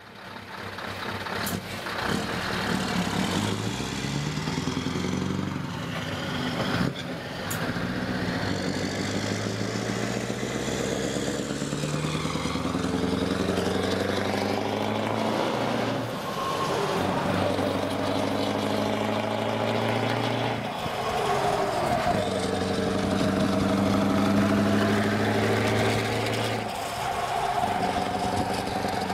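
Scania V8 truck engine on open, straight exhaust pipes, pulling hard as the truck accelerates. Its pitch climbs and falls back with each gear change, then holds steady for a long stretch before dropping near the end, with tyre and road noise underneath.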